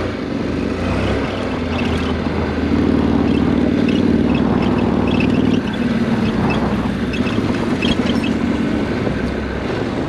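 Motorcycle engine running at a steady pace while riding over rough dirt, with scattered light clicks and rattles over the engine sound.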